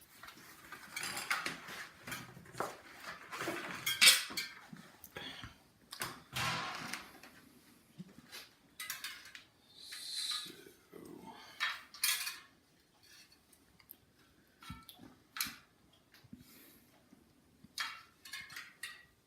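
Metal tools and bicycle wheel parts clinking, scraping and rattling in irregular bursts, from hands-on work replacing a broken spoke.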